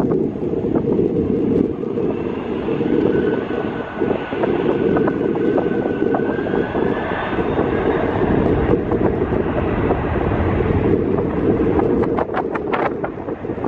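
Boeing 767 twin-engine jet airliner on the runway: a steady low rumble with a faint jet whine that rises slightly in the middle, under heavy wind buffeting on the microphone. A few sharp clicks come near the end.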